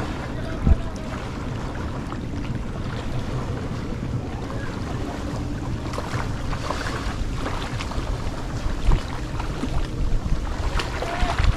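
Strong wind buffeting the microphone over the noise of river waves, with a steady low hum underneath and a couple of brief thumps.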